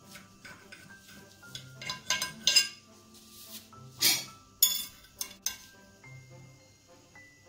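Metal knife and cake server clinking and scraping against a ceramic plate while a slice of baked omelet is cut and lifted, a few sharp clinks with the loudest about four and four and a half seconds in. Soft background music with held notes plays underneath.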